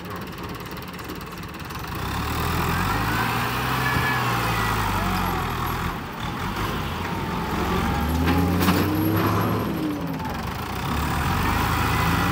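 New Holland TS90 tractor's diesel engine working under load while pushing piles of soil. It gets louder about two seconds in, and its note rises and falls as the load changes.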